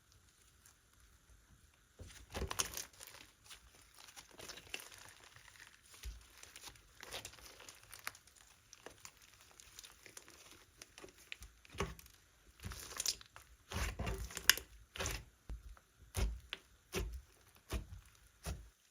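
Slime being squeezed, stretched and poked by hand, making irregular sticky crackles and pops. It starts about two seconds in and grows denser and louder in the second half.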